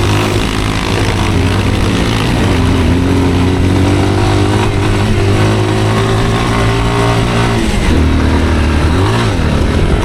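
Off-road motorcycle engine running steadily under way. Its pitch drops near the end, then rises again briefly as the throttle is eased and reopened.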